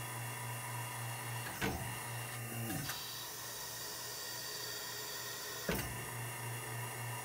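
Bactron anaerobic chamber running its sleeve cycle, pumping the air out of the arm sleeves and replacing it with nitrogen: a steady, pulsing pump hum. A sharp click comes about one and a half seconds in and another near the end, with a short falling tone just before three seconds in.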